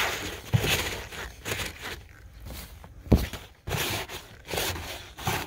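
Cloth shop rags rustling and scraping as they are handled and packed around a fuel line fitting, with a soft thump about half a second in and a sharper knock about three seconds in.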